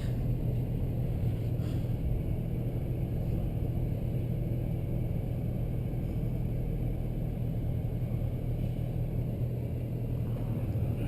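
Pickup truck engine running steadily with a low, even hum, heard from inside the cab.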